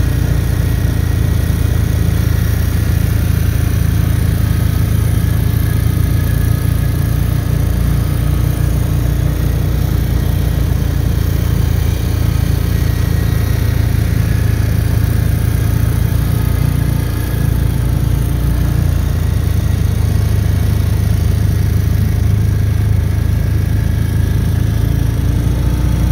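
Polaris Trail Boss 325 quad's four-stroke single-cylinder engine running steadily as it is ridden along a dirt track. The engine note dips briefly about two-thirds of the way through.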